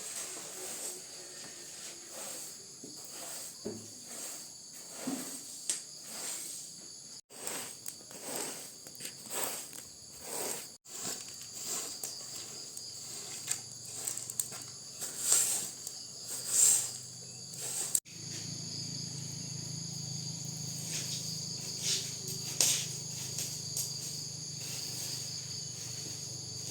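Insects, crickets or cicadas, chirping steadily in a high pitch, over a run of intermittent knocks and scrapes. A steady low hum joins about two-thirds of the way through.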